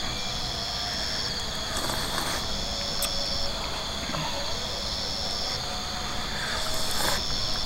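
Insects trilling: a steady high-pitched buzz, with a second, higher trill that comes on for about a second roughly every two seconds. A brief rustle comes twice and a single click once, over a low rumble.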